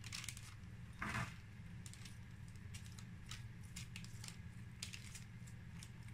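Silicone pastry brush dabbing and brushing sauce over a whole fish on baking paper: faint scattered clicks and light crinkles, with one louder rustle of the paper about a second in, over a low steady hum.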